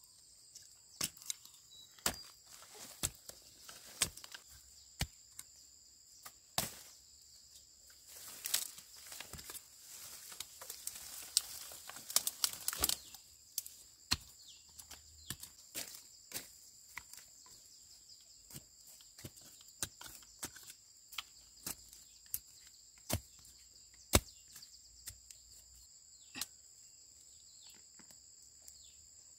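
A steady high-pitched insect chorus, with irregular sharp knocks and snaps throughout and a few seconds of rustling about a third of the way in.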